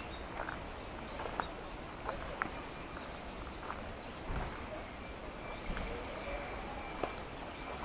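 Footsteps of a person walking, uneven knocks about once a second, over a steady outdoor hiss.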